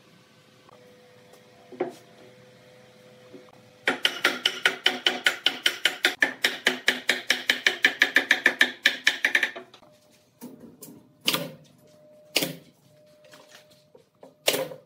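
Wooden mallet tapping a wooden joint together, a fast even run of light knocks, about six a second for some five seconds, each with a short ringing wooden tone; then a few separate knocks.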